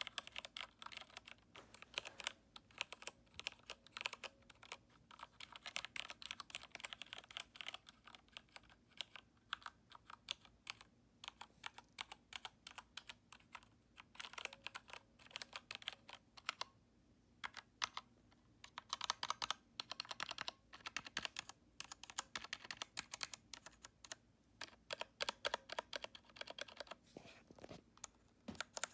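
E-Yooso mechanical keyboard with red linear switches being typed on in quick runs of key clacks, with brief pauses between runs.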